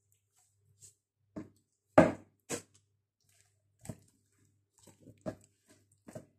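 Short knocks and thuds of a knife and a raw whole chicken against a wooden cutting board as the chicken is cut and handled, a scattered string of them with the loudest about two seconds in.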